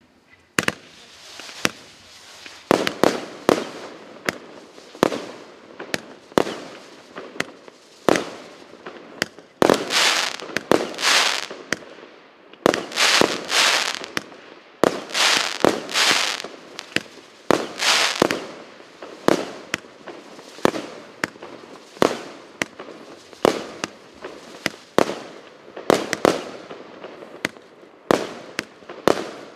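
Fireworks battery (cake) firing its shells one after another, a steady run of launch thumps and bursts about one or two a second, with crackling tails after many of them.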